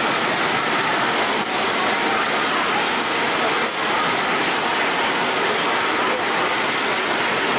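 Passenger train hauled by a diesel locomotive rolling slowly past along a station platform, with a steady running noise and the wheels clicking over rail joints every second or so.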